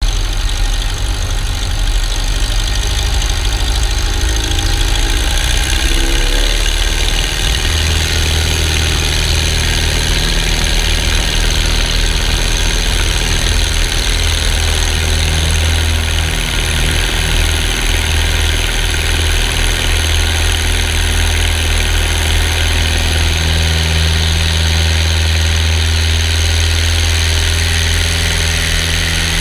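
Kitfox light aircraft's engine and propeller running steadily, with a shift in the engine note about five to seven seconds in.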